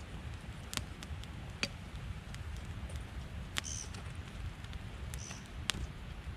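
Campfire of damp firewood burning, giving sharp crackles and pops every second or two over a low steady rumble, with two short high squeaks.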